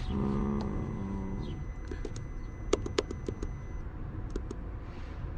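2003 Cadillac CTS engine running at a steady idle. A short steady hum comes in the first second, and a few sharp clicks come around the middle.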